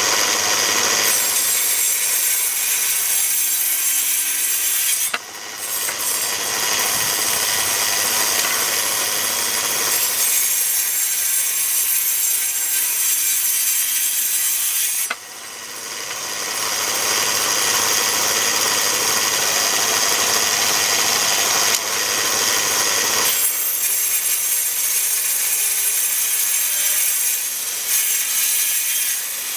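DeWalt 13-inch thickness planer running loud and steady as rough white oak boards are fed through its cutterhead. The noise dips sharply twice, about five and fifteen seconds in, and builds back up each time.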